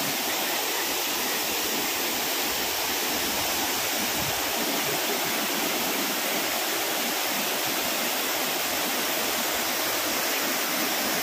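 Waterfall cascading over rock ledges into a pool, a steady noise of falling water.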